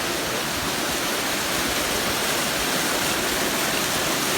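Waterfall: steady, even noise of falling water.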